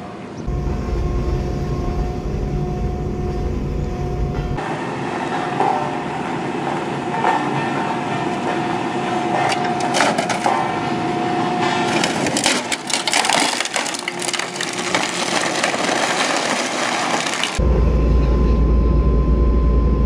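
A 12-tonne Ammann single-drum road roller's engine running as its steel drum rolls over a 42-inch LCD TV. Through the middle stretch, and most densely in the later part, the screen and plastic casing crack and crunch under the drum. The steady engine noise carries a heavy low rumble at the start and end.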